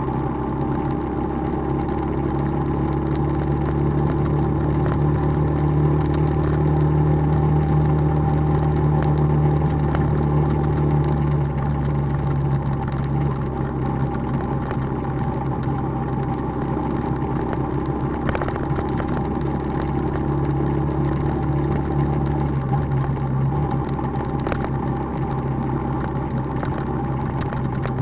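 Motorbike engine running steadily at cruising speed, a continuous hum whose pitch drops slightly about twelve seconds in and again near twenty-three seconds, with one brief click about eighteen seconds in.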